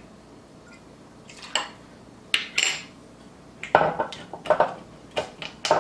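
Metal bar jigger and glass bottles clinking and knocking as they are handled and set down on a countertop while a cocktail is mixed. A couple of sharp clinks come about a second and a half in, then a quicker run of knocks in the last two seconds.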